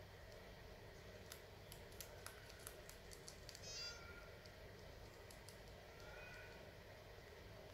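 Guinea pigs chewing corn husk: faint, irregular crisp clicks of crunching over a couple of seconds, ending in a brief high-pitched sound about halfway through.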